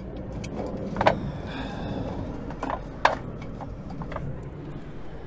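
Aluminium drink cans knocking and clinking as they are taken from a crate and slotted into a vending machine's spirals: a few sharp knocks, the clearest about a second in and two close together around three seconds, over a low steady rumble.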